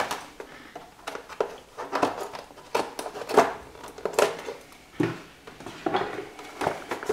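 Packaging being pulled and pried open by hand: irregular crackles, clicks and rustles as the inner wrapping and seals around a gaming mouse are worked loose.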